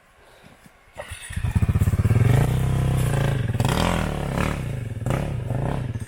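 Dirt-bike engine that comes in sharply about a second in and runs loud, its pitch rising and falling several times as the throttle is worked.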